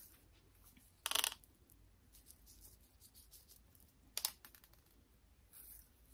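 Faint scattered ticks and rustles of microgreen seeds being handled and sprinkled by hand onto coconut coir in a tray, with a short louder rustle about a second in and a sharper click about four seconds in.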